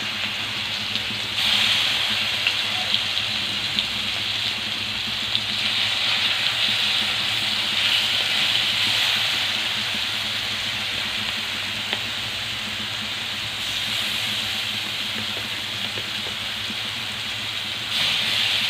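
Marinated chicken pieces sizzling in a little hot oil in a pan over a high flame: a steady hiss with scattered small pops, swelling louder about a second and a half in and again near the end.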